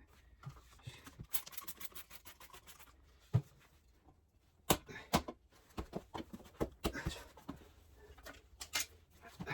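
Hand work on a motorcycle tyre and wheel: a stretch of rubbing and scraping, then a series of sharp knocks and clicks, a few of them louder, at irregular intervals.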